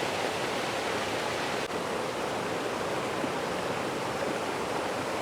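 Shiraito Falls, a wide curtain of many thin cascades, splashing and rushing with a steady hiss of falling water.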